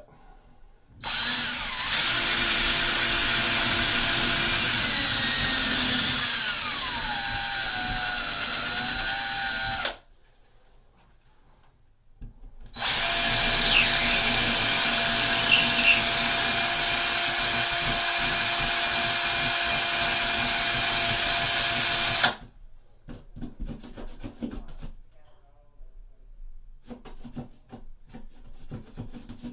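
DeWalt cordless drill with a larger bit, boring out and rounding two holes in the wall: two long runs of about nine seconds each, with a short stop between them. The motor's pitch falls partway through the first run, and the second stays steady. Faint handling taps follow near the end.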